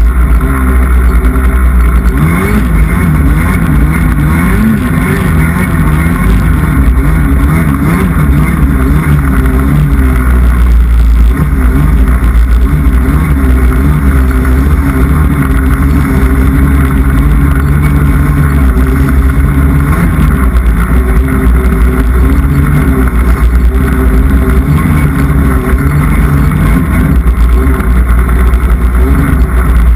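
Polaris snowmobile engine running under way, its revs rising and falling, heard close up from the front of the sled.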